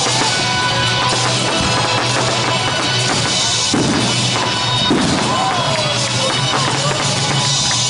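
Aerial fireworks bursting in quick succession, with crackling stars, heard together with music with a drum beat. The sound is dense and steady in loudness, with no single burst standing out.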